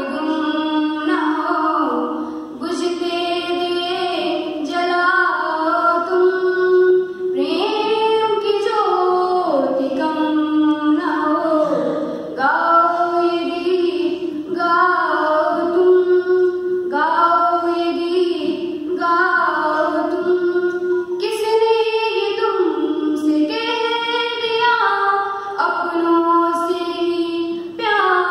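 A girl singing a Hindi song solo into a microphone, unaccompanied, in a series of melodic phrases with short breaths between them.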